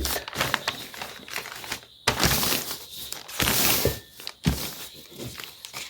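Crinkling and rustling of a takeaway food parcel's wrapping being opened by hand, uneven, with a few sharp clicks and louder stretches partway through.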